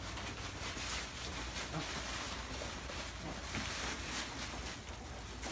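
Quiet room tone: a steady low hum with faint, scattered rustles.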